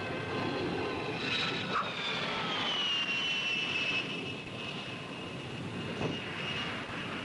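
Jet engines of a landing Lockheed SR-71: a steady rushing jet noise with a high whine that falls in pitch from about one to three seconds in, then holds as a steady high tone.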